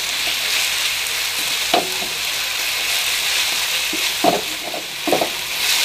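Blended chili and shallot spice paste with chopped onion sizzling steadily in hot oil in a wok, stirred with a wooden spatula that scrapes against the pan about three times.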